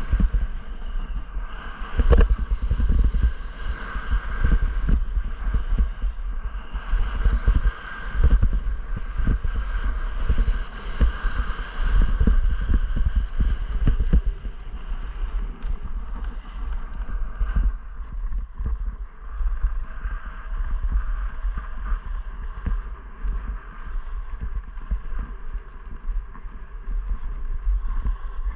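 Wind buffeting an action camera's microphone as a skier descends, with the hiss of skis sliding over packed snow. The rumble is louder and gustier in the first half and eases off after about two-thirds of the way through.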